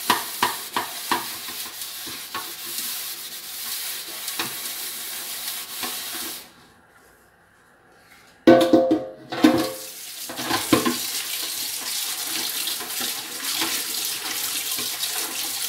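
A sponge scrubs a sugar-and-detergent paste around the inside of an aluminium pot. There is a brief quiet gap, then a sudden clank and ringing as the metal pot is handled at the sink. After that, tap water runs steadily into the pot while it is rubbed and rinsed.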